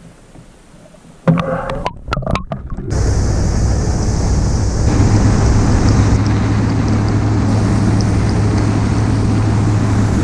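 Outboard motor of a bass boat running at speed: a steady low drone under loud rushing wind and water. It comes in about a second in with a couple of seconds of irregular rushing, then settles.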